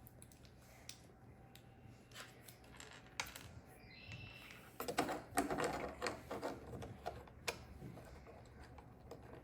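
Small plastic Lego bricks being handled and pressed together: faint, scattered clicks and light rattles at uneven intervals.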